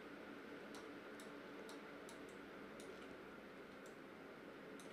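Near silence: faint room tone with several soft, irregularly spaced clicks from working a computer's mouse or keyboard.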